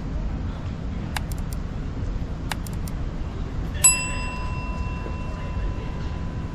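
A single sharp metallic ding a little past halfway, ringing on with a clear, bell-like tone for over two seconds as it fades. A few faint sharp ticks come before it, over a steady low rumble of city street ambience.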